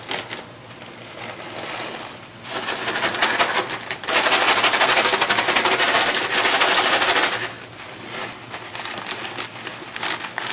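Plastic pasta-mix packet crinkling and rustling as it is handled, shaken and opened. The sound is loudest for about three seconds in the middle, then turns to quieter rustling as the dry contents are tipped into a metal canteen cup.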